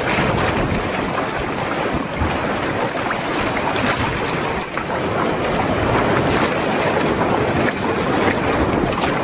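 Choppy sea water slapping and splashing against a sea kayak's hull and bow, with wind buffeting the microphone; a steady, loud wash of noise with irregular splashes.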